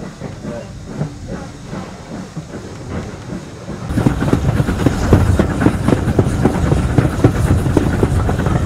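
Steam-hauled passenger train running, heard from inside a carriage: a moderate rumble of the moving coach, then about four seconds in a much louder, rapid rhythmic beating of the train at speed.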